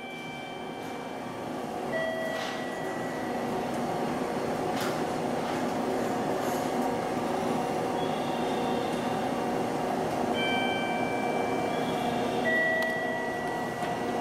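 Roll-up metal shutter over station ticket gates being raised: a steady rattling rumble of the slats rolling up, with short high squeaks that come and go.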